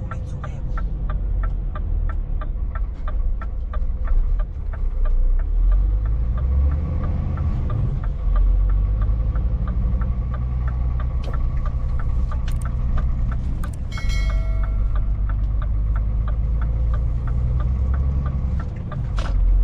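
Scania S500 truck's 13-litre straight-six diesel running under way, heard inside the cab as a steady low drone. The turn indicator ticks evenly over it and stops about two-thirds through, followed by a short high-pitched sound and, near the end, a single sharp click.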